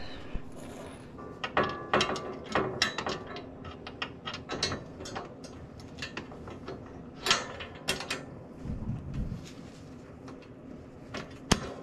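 Irregular metal clicks and clanks from a snow plow's quick-attach mount being lifted and lined up under an ATV.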